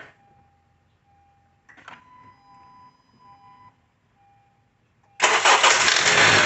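Honda CR-V's engine started: after a couple of clicks and faint intermittent beeping tones, the engine fires abruptly about five seconds in and runs loudly. On start-up it makes a knock, which the owner first suspected was the VTC actuator or timing chain and traced to a badly worn serpentine belt.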